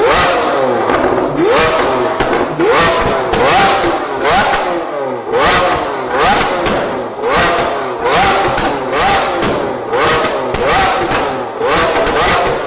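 Lamborghini Aventador SV's naturally aspirated V12, running through an open-valve Fi Exhaust system, is revved hard about once a second while standing still. Each rev climbs and drops quickly, and sharp crackles and pops come from the exhaust between the revs.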